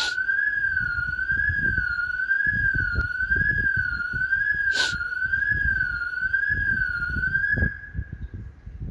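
Car alarm sounding: one high warbling tone that wavers about twice a second, set off by someone touching the car's window glass. It cuts off suddenly about a second before the end.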